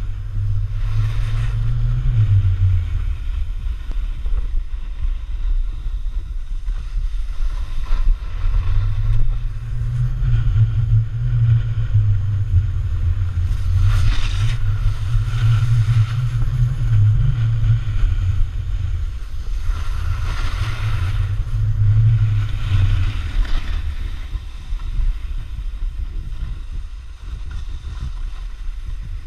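Wind rumbling and buffeting on the camera's microphone as a snowboard slides downhill, with the hiss of the board scraping over the snow swelling twice, about halfway through and again a little later.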